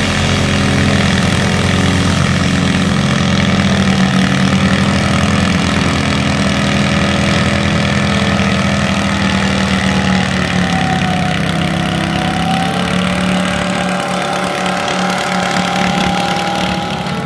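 Garden tractor engine running hard under load as it pulls a weight-transfer sled: a loud, steady engine drone, with a higher whine joining in past the middle.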